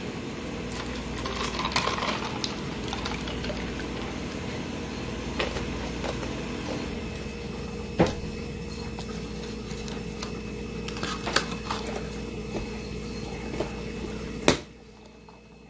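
Eating sounds: chewing a toasted grilled cheese sandwich, with scattered sharp clicks and taps from the paper sleeve and objects being handled. A steady background hum runs underneath and stops abruptly near the end.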